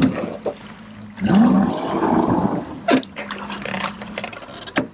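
Water sloshing and splashing, with sharp knocks about three seconds in and again near the end.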